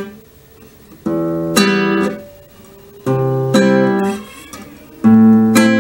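Nylon-string classical guitar played fingerstyle: three chords in turn, about two seconds apart, each a low bass note followed by a chord plucked on the top three strings. This is the song's pattern stepping through E minor, C and A minor.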